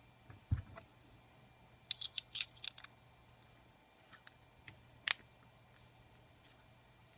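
Metal pocket watch case being handled: a soft bump, then a quick run of small sharp metallic clicks, a few faint ones, and one sharp click a little after the midpoint.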